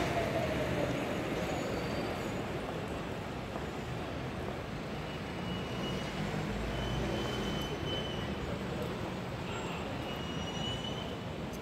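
Steady city street traffic: a continuous rumble of cars and vans driving by, with a few faint, short high-pitched tones in the second half.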